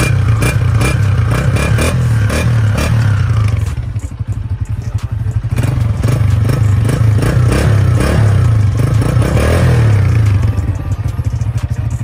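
Single-cylinder Honda motorcycle engine running at the exhaust, its rapid pulsing note rising and falling as the throttle is blipped: revved for the first few seconds, eased off around four seconds in, revved again, then settling back near the end.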